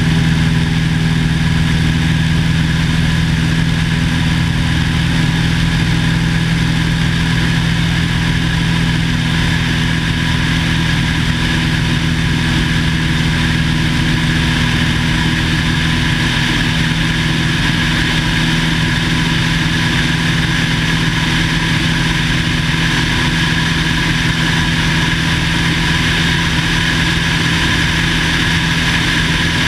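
The 1950 Cessna 170A's six-cylinder Continental engine and propeller droning at a steady, unchanging pitch, with a hiss of airflow over it.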